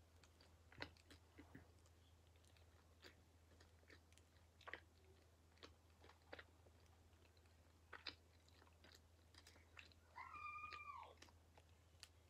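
Faint chewing mouth sounds, scattered soft clicks and smacks, as a fried breakfast is eaten. About ten seconds in comes a brief high cry that rises and falls.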